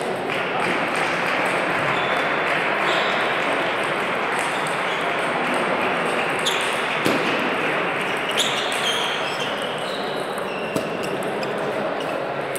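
Sharp clicks of a table tennis ball hitting bats and table in a short rally, over the steady din of a large hall full of other matches and voices.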